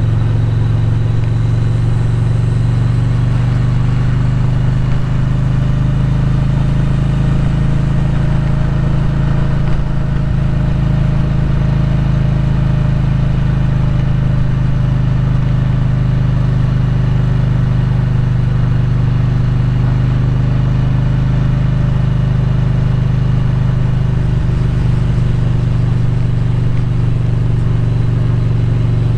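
Motorcycle running at a steady cruise: a constant low engine hum with road noise, no changes in pace.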